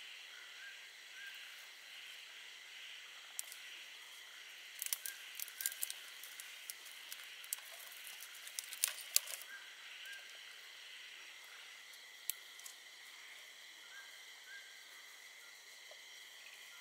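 Steady night chorus of insects such as crickets, with a short chirp recurring every second or two. From about five to nine seconds in comes a flurry of close sharp clicks and rustles.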